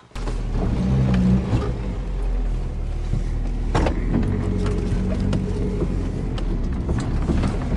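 Old 4x4's engine running at a steady low pitch, heard from inside the cabin while driving over a rough dirt track, with rattles and clicks from the body and a sharper knock about four seconds in.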